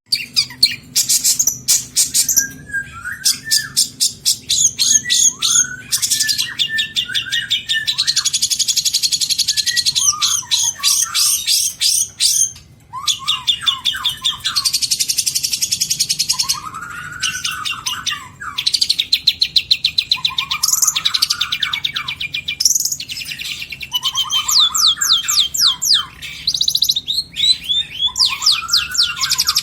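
Long-tailed shrike (cendet) singing a long, varied song of mimicked phrases: fast high chattering trills, long rattling runs and lower slurred whistles, with hardly a pause.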